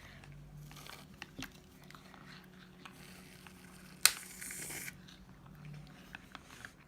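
Shaving foam aerosol can: a sharp click about four seconds in, then a hiss of just under a second as foam is sprayed out. Faint clicks and handling of the slime containers around it.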